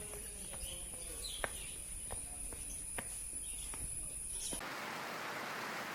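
Forest ambience: a steady high insect drone with scattered sharp clicks and faint bird chirps. About four and a half seconds in it cuts abruptly to an even hiss.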